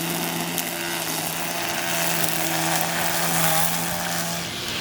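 Handheld string trimmer running steadily at a high, even speed, then stopping shortly before the end.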